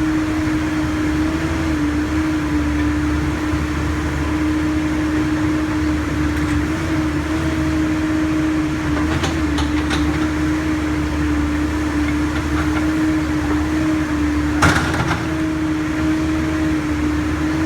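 Backhoe's diesel engine running steadily with a constant whine over a low hum, with a few light clinks about nine seconds in and one sharp clank near the end.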